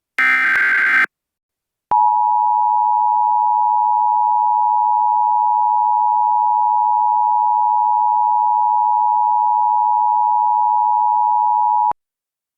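Emergency Alert System alert tones: a final one-second burst of the SAME header's digital data tones, then, after a short gap, the steady two-tone EAS attention signal held for about ten seconds before cutting off sharply.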